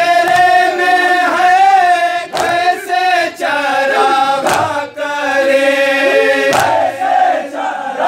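Men's voices chanting a noha (Shia lament for Sakina) in long, drawn-out held notes. Sharp slaps of hands beating chests in matam cut through the chanting several times, twice in quick pairs.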